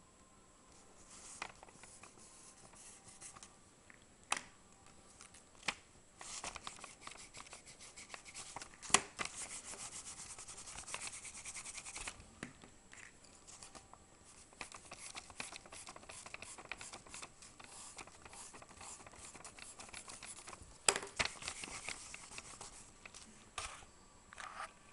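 Graphite pencil scratching across paper in quick, repeated short strokes, shading fur. The scratching comes and goes, with a few sharp clicks along the way.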